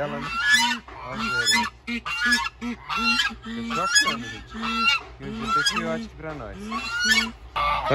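Domestic geese honking, a run of short calls about two a second.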